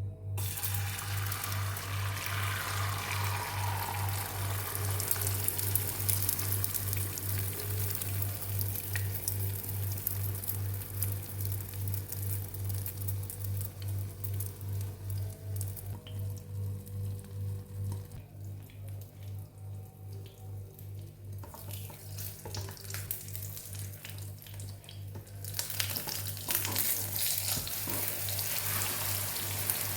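Food sizzling and crackling as it fries in a pan, over background music with a steady low pulsing beat. The sizzle dies down for several seconds past the middle and comes back near the end.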